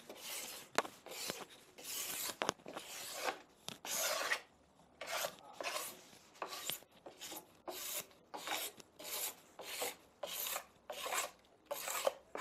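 A wax scraper drawn in short, quick strokes along a cross-country ski's edge, scraping off paraffin wax that has cooled on the ski, roughly two strokes a second.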